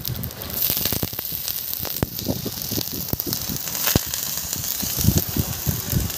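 Water sizzling and crackling on an overheated steel wheel hub, a steady hiss with many sharp crackles.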